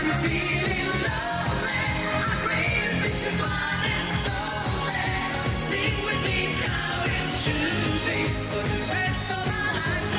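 Women's voices singing a pop song live over a pop backing track with a steady beat.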